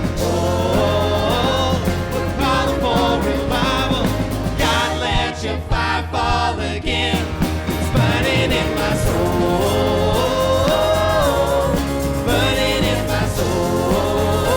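Live worship band playing a praise song, with sung vocals over a steady bass.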